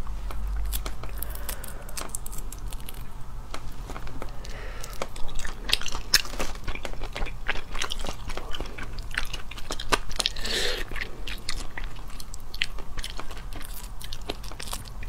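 Cooked crayfish shells cracking and being peeled apart by hand, with close-up crunching and chewing: a dense, irregular run of sharp cracks and clicks.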